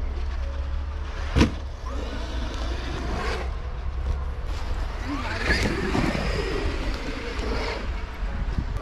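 Traxxas X-Maxx 8S electric RC monster truck driving through snow, its brushless motor whining up and down in pitch as it revs about five to six seconds in. A single sharp knock about a second and a half in is the loudest sound.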